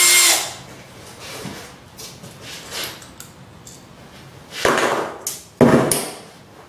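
Handling noises while working with a cordless drill at a wall fitting: a short burst at the start, faint clicks and knocks, then two louder rustling scrapes about a second apart near the end.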